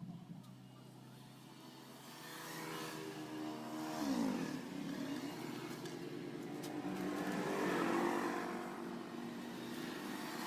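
Single-cylinder 100cc four-stroke motorcycle engine running and being revved. Its pitch dips and climbs sharply about four seconds in, and it revs up again to a peak near eight seconds.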